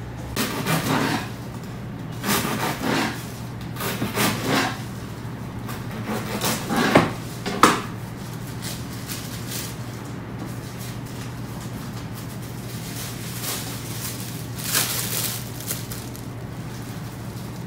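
Serrated bread knife sawing through a crusty ciabatta loaf on a wooden board: a run of short rasping strokes in the first eight seconds, the sharpest near the end of that run, and a few more near fifteen seconds. A steady low hum runs underneath.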